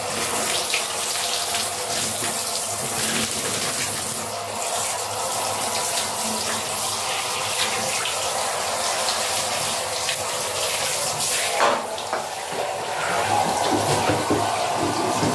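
Handheld shower head spraying water over a small dog's coat and onto a tiled shower floor: a steady hiss of running water.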